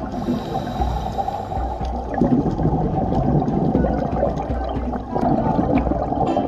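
A scuba diver breathing through a regulator underwater: a hiss of inhaled air for about the first second and a half, then a long burst of exhaled bubbles bubbling and crackling for about three seconds.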